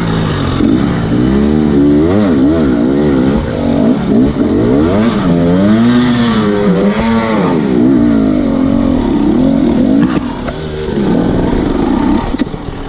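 Dirt bike engine revving up and down over and over as the throttle is opened and closed while riding.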